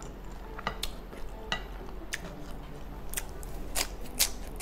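Close-miked eating sounds: a wooden spoon scooping fried rice in a glass dish and sharp wet mouth clicks of chewing, scattered through, with the two loudest clicks close together near the end.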